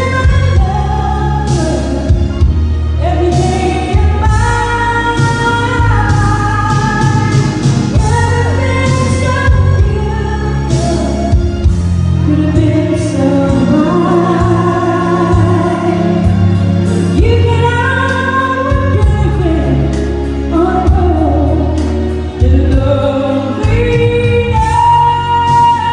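A solo singer's voice, sung live into a microphone and amplified through PA speakers, over instrumental accompaniment with a steady bass and drum beat. The voice sings in phrases of held and bending notes.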